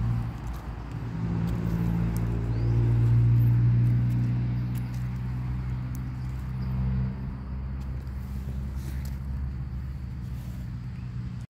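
Low, steady hum of a motor engine, growing louder to a peak about three seconds in and then slowly fading, with a few faint crackles on top.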